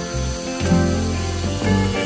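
Background music: a plucked guitar tune, its notes changing every half second or so.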